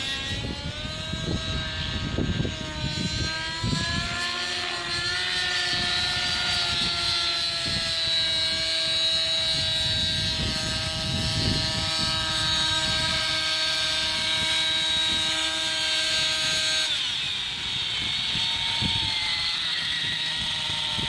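TSA Infusion 600N Pro nitro RC helicopter in flight: its two-stroke glow engine whines along with the rotors. The pitch rises and falls over the first few seconds, holds steady for a long stretch, then drops about three-quarters of the way through.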